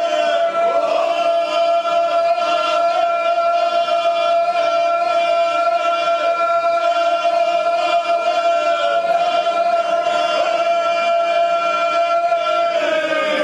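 Traditional Herzegovinian male folk singing group singing a cappella, the voices holding one long sustained chord with small ornaments, then beginning to slide down in pitch near the end as the song closes.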